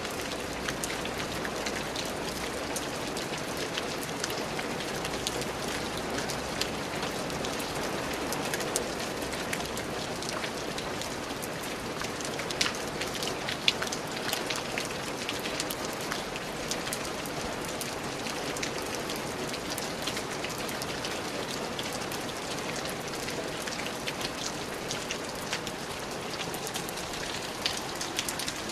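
Steady rain falling on a surface, a continuous hiss with many individual drops ticking.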